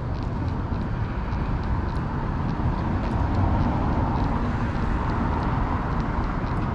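Outdoor city street ambience: a steady low rumble of traffic, with light ticks about two to three times a second that fit footsteps on pavement.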